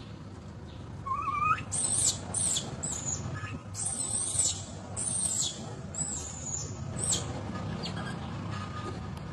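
Infant long-tailed macaque screaming in distress. A short rising squeal comes about a second in, followed by about seven high, shrill cries over the next six seconds, which fade out near the end.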